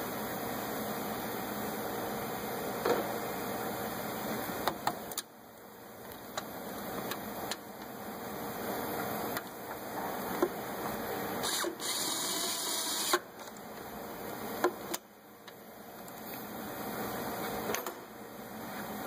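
Scattered sharp clicks and knocks of hands handling ignition coil connectors and a ratchet under the engine, over a steady background hiss. A brief rustling hiss comes about twelve seconds in.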